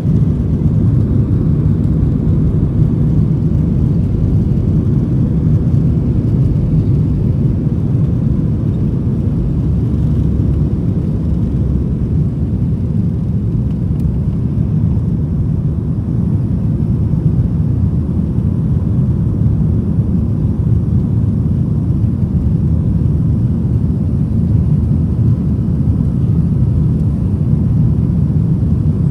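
Cabin noise of a Boeing 737-900ER during its takeoff roll and climb-out: the two CFM56-7B27E turbofans at takeoff thrust, heard as a loud, steady, heavy low rumble with a faint steady whine above it.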